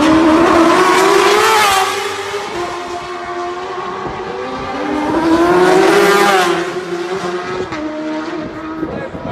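Two racing motorcycles go past at speed one after the other. Each engine note climbs as it comes in at full throttle, then drops in pitch as it passes, the first about two seconds in and the second about six seconds in. A fainter engine note carries on after each pass.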